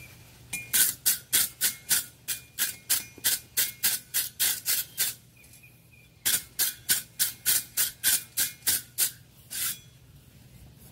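Blacksmith's hammer striking hot iron on an anvil in two quick runs of blows, about three a second, with a short pause in the middle and a last single blow near the end; each blow carries a metallic ring from the anvil.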